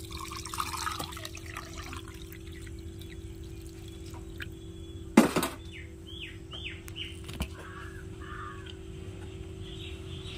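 Water poured from a steel vessel into a steel mixer-grinder jar onto coarsely ground spice paste for the first couple of seconds, then a single sharp metallic knock about five seconds in.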